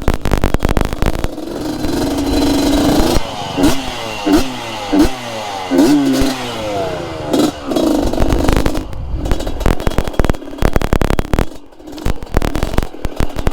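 Two-stroke single-cylinder engine of a Yamaha DT trail motorcycle fitted with an RX-King engine, revving up and down in quick repeated swings, with the clatter and knocks of the bike working over rough rock.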